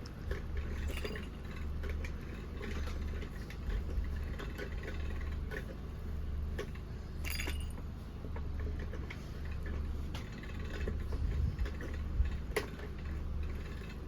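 Light clicking and clinking of a cat toy as a cat plays with it, scattered irregularly, over a steady low hum.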